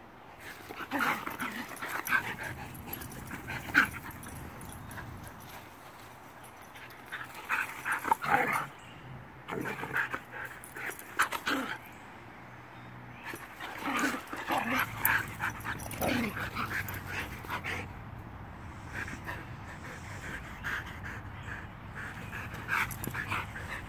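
Two huskies playing rough with each other, vocalizing in repeated bursts of whines and yips with short quiet gaps between.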